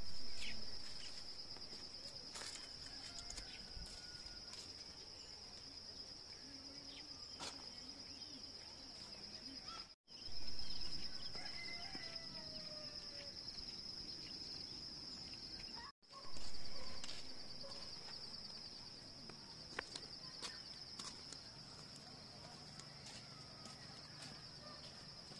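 Steady high-pitched chirring of insects, broken twice by a moment of silence, with scattered light clicks and knocks and a few faint bird calls.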